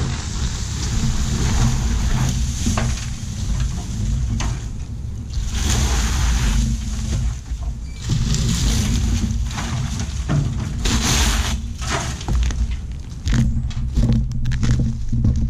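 Pressure washer running with a steady low hum, its water spray hissing against the roof in uneven bursts.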